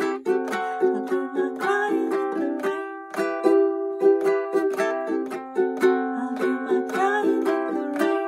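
Ukulele strummed in a steady rhythm, several strokes a second, ringing through the chords of a slow pop ballad in G major.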